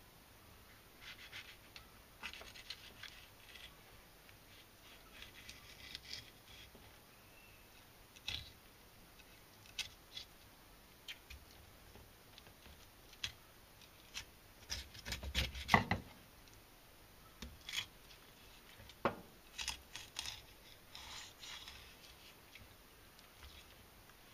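Kitchen knife cutting into a young yellowtail (inada) on a wooden cutting board during three-piece filleting. Faint scattered scrapes and crisp clicks of the blade through skin and bone, with a cluster of louder knocks and scrapes about fifteen seconds in.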